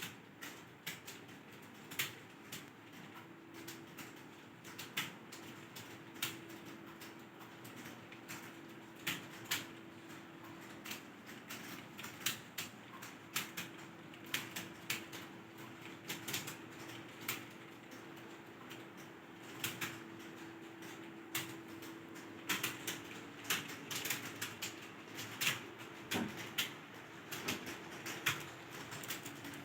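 Computer keyboard being typed on: irregular keystroke clicks, a few a second, over a faint steady hum.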